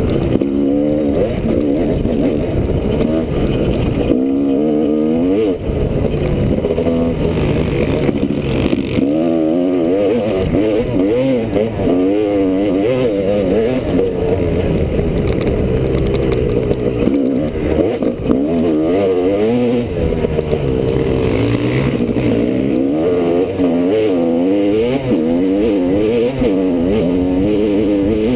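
Honda CR250R single-cylinder two-stroke engine revving up and down over and over as the rider works the throttle and shifts on a trail ride.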